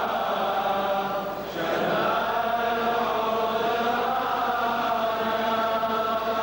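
A large group of voices, clergy and congregation, chanting a slow liturgical funeral hymn together, with one short break in the chanting about a second and a half in.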